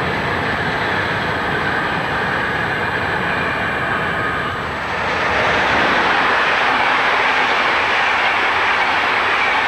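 Freight wagons rolling across a railway bridge over a river weir, mixed with the steady rush of the weir water. About five seconds in, the sound cuts to a passenger train's coaches rolling past close by, louder and fuller.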